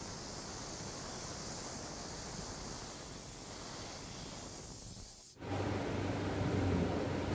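A steady, even hiss; a little over five seconds in it cuts off abruptly and a louder steady mechanical hum with a low tone takes over.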